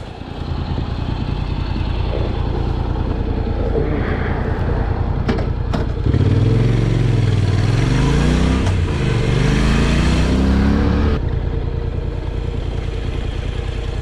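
Honda NC750X motorcycle's parallel-twin engine running as the bike is ridden, with two sharp clicks about five and a half seconds in. From about six seconds the engine pulls harder, its pitch rising and falling, then eases off suddenly near the eleven-second mark.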